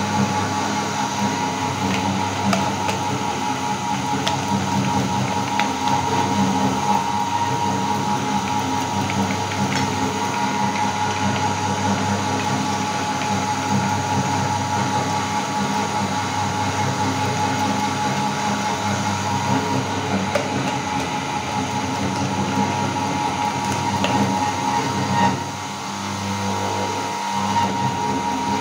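Motorized meat grinder running with a steady hum as it grinds chocolate bars. The sound drops briefly near the end before picking up again.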